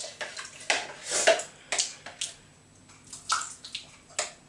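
Spoon clicking and scraping in a mixing bowl in irregular strokes, with a wet sound as a tablespoon of baking-soda-and-water activator is mixed into the glue.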